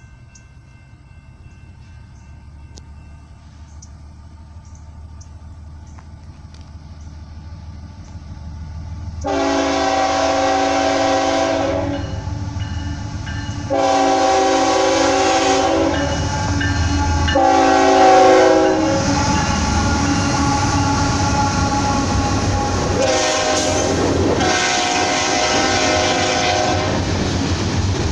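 Norfolk Southern freight train approaching and passing. The diesel locomotives' rumble builds, then the air horn sounds in long, long, short and long blasts, the grade-crossing signal, with two more blasts near the end. The heavy rumble and rolling of the freight cars continue underneath.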